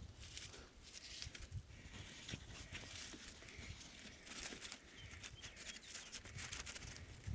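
Faint rustling and crackling with many small scattered clicks.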